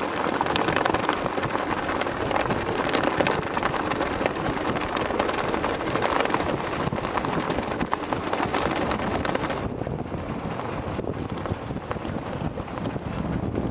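Wind buffeting the microphone over a steady rush of water and boat noise on open water. The high hiss drops away abruptly about ten seconds in.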